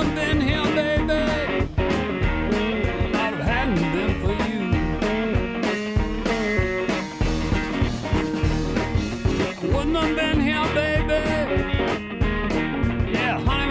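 Rock music with electric guitar and a steady beat.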